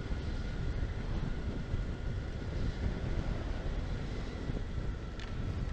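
Riding noise from a Honda Pan European motorcycle picked up by a helmet-camera microphone: steady wind rumble with the engine running under it. There is a single short click about five seconds in.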